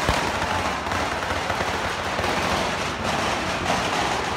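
Fireworks on the antique Florentine cart going off in a loud, staccato barrage: rapid crackling bangs running together with hissing, and a sharp bang just at the start.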